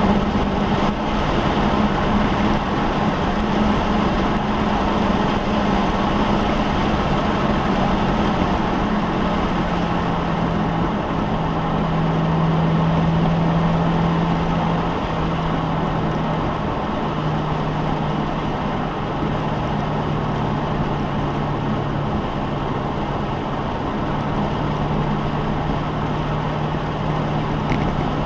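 A car engine drones at a steady cruise, with road noise under it. Its note drops slightly about ten seconds in, then holds steady.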